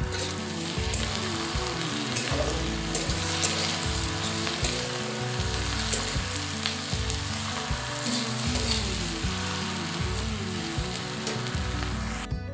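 Sliced onions frying and sizzling in a black kadai, stirred with a steel spatula that clicks and scrapes against the pan now and then; the sizzling cuts off just before the end. A background music track with a repeating low pattern runs underneath.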